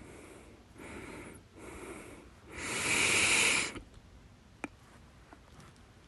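A person hiccupping: a short, sharp hiccup at the start and another about four and a half seconds in, with three breaths between them, the third long and much louder than the others.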